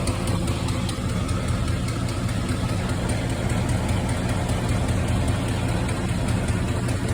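1972 Chevrolet Chevelle's engine idling steadily with a fast, even ticking noise. The owner takes the tick for a loose lifter, though it could be an exhaust leak.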